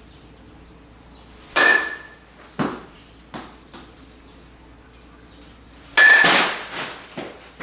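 Metal baseball bat hitting a ball twice, about four and a half seconds apart, each hit a sharp ping with a brief ring, followed by a few lighter knocks.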